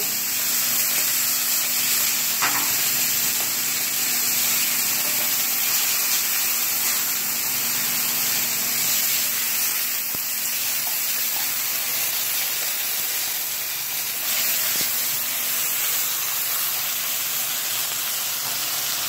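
Steak sizzling steadily in a hot frying pan on a gas burner, with soy sauce just added to the pan.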